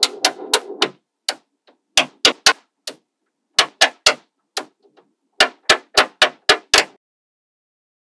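Small magnetic balls clicking as blocks of them are snapped onto a wall of magnetic balls: a string of sharp clicks, often in quick runs of two or three, stopping about a second before the end.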